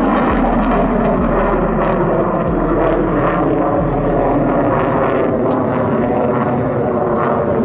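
An F-35 Lightning II fighter jet flying overhead, its jet engine a loud, steady rushing noise.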